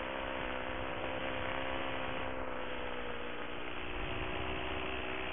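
Paramotor trike engine and propeller running steadily in flight: a constant drone made up of many evenly spaced tones over a rushing haze.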